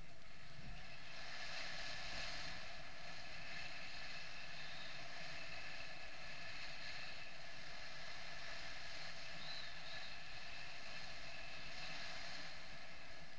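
Steady rush of air over the camera during paraglider flight, an even noise with a faint whistle of held tones in it.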